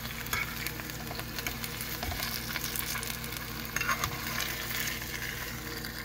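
Yellow jack fillets frying in oil in a pan, a light steady sizzle and crackle, with a few short taps of a fork against the pan as the fillets are turned, about two and four seconds in. The stove is on max heat and the oil is hardly sizzling: the burner isn't getting the pan hot enough.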